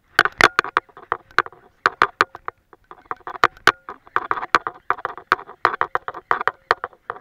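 Handling noise from a baitcasting rod and reel: a fast, irregular run of sharp clicks and knocks that starts suddenly.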